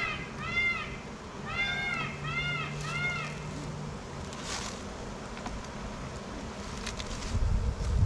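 An animal gives five short, pitched calls that rise and fall, two and then three in quick succession, over a low steady buzz of honey bees around the open hive. Wind starts buffeting the microphone near the end.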